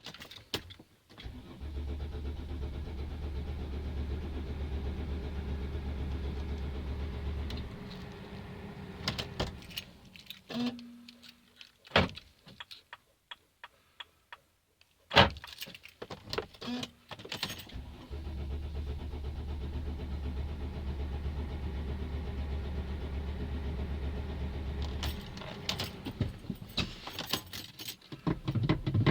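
Mercedes Sprinter van's engine being cranked by the starter without catching: two long steady cranking spells of about six seconds each, hard starting. Between them come sharp clicks of the key and controls and two short beeps, and a further attempt begins near the end.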